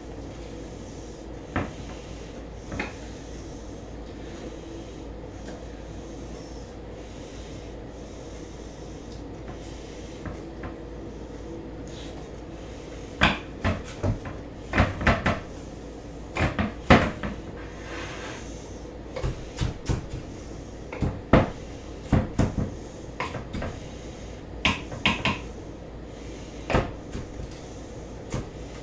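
Kitchen knife chopping green onions on a cutting board: two single knocks at first, then, about halfway in, many sharp irregular knocks of the blade hitting the board.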